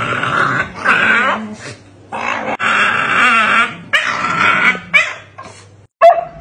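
Shiba Inus play-fighting, giving rough growls and yips in four or five bursts of about a second each. Near the end a short, higher whine starts.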